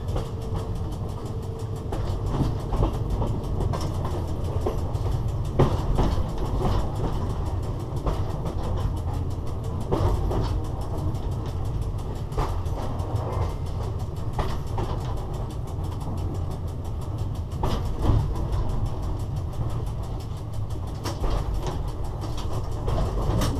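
Cab of a BDZ class 45 electric locomotive under way: a steady low rumble of the running train, with sharp knocks from the wheels every second or few, the loudest about six seconds in and again near the end of the first twenty seconds.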